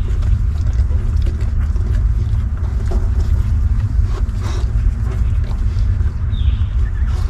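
A steady low rumble, with one brief high squeak from a newborn puppy about six and a half seconds in.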